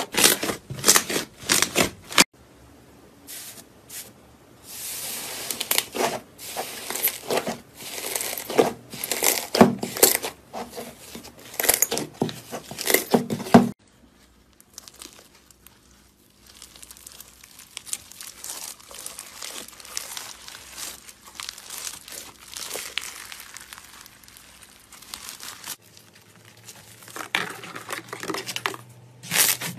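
Slime being squeezed, kneaded and stretched by hand, with dense crisp crackling and popping as trapped air bursts. It comes in loud spells and goes softer in the middle, then turns loud and crackly again near the end.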